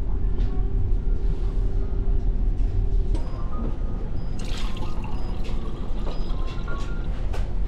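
A water and tea dispenser pouring into a cup, with a short pour about halfway through, over a steady low hum.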